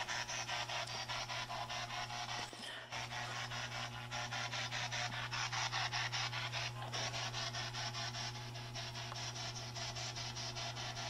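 Continuous scratchy rubbing noise with a fast, even crackle, over a steady low hum: handling noise on the microphone of a camera being carried.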